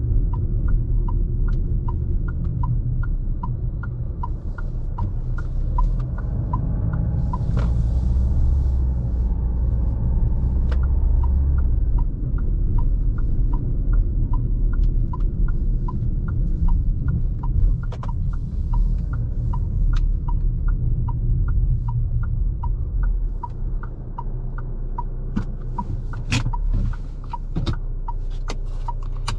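Fiat Toro Volcano's 2.0 diesel engine and the road heard from inside the cabin as a steady low rumble, with the turn-signal indicator ticking about twice a second through most of it. A few sharp clicks come near the end.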